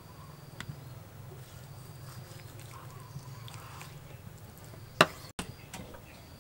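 A knife cutting raw chicken breast away from the carcass on a wooden chopping block: soft scraping and small clicks, with one sharp knock about five seconds in.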